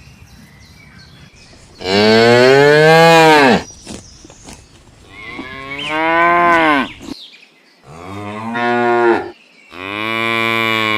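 Cow mooing: four long calls, the first rising and then falling in pitch, the last held steadier and still sounding at the end.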